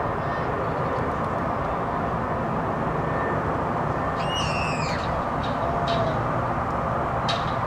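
Airbus A320neo's CFM LEAP-1A jet engines giving a steady rumble as it flies over on approach to land. About four seconds in a bird gives one short falling call, and a few brief chirps follow.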